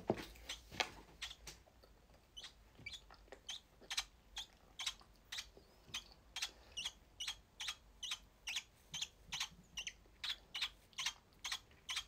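Young lovebird, about a month old, calling in a long run of short high chirps, about two or three a second.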